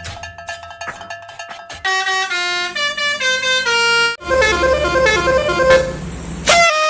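After about two seconds of faint clicking, a multi-tone 'telolet' bus horn plays a tune of separate stepped notes, mostly falling in pitch. A short horn blast comes near the end.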